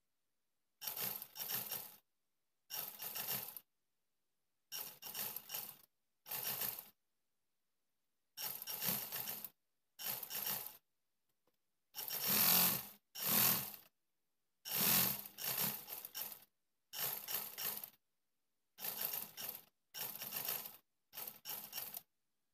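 Classic black domestic sewing machine stitching through an elastic waistband in short runs, about a dozen spurts of roughly a second each with pauses between.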